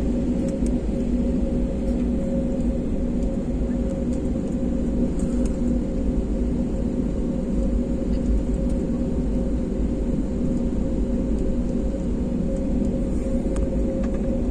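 Jet airliner cabin noise while taxiing before take-off: the twin turbofan engines running at low taxi thrust make a steady hum over a low rumble, unchanging in level throughout.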